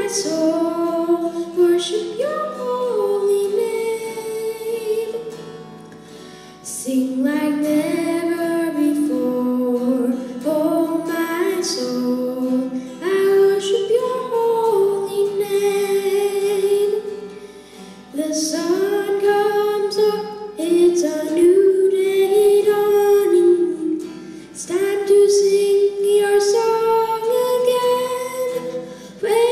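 A boy's solo singing voice over a strummed acoustic guitar, a slow worship song sung in phrases with short breaks for breath between them.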